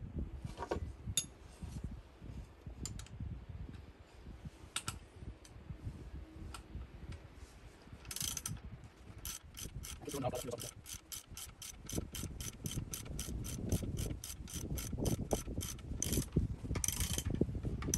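Ratchet wrench on a half-inch socket clicking as it turns a 5/16 bolt through a threader-bar nut, pulling a cast iron valve guide out of a 1926 Fordson F engine block. A few scattered clicks come first, then about halfway in a steady run of quick clicks, around four a second.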